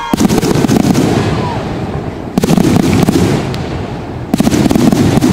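Fireworks going off in three volleys of dense, rapid crackling: one starts right away, the next about two and a half seconds in, the last a little after four seconds in.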